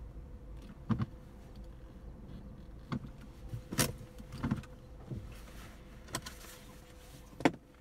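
Inside a car: a series of sharp clicks and knocks, about seven over several seconds with the loudest near the end, over a low steady rumble and a faint steady hum.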